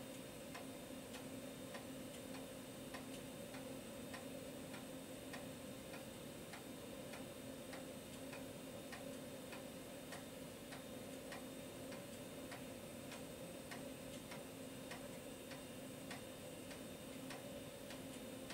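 A 5.25-inch floppy drive formatting a 360K diskette: its head steps track by track with a sharp click about twice a second over a steady hum.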